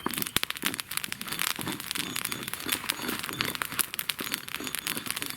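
Steady, dense crackling and rustling made of many small clicks.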